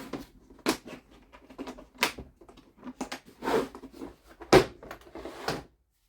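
Handling noise: a series of sharp knocks and clatters, the loudest about four and a half seconds in, with short stretches of rustling as things are picked up and set down.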